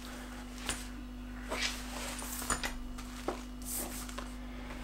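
Soft rustling of a skydiving rig's nylon container and leg strap being moved and laid flat, with a few light clicks, over a steady faint hum.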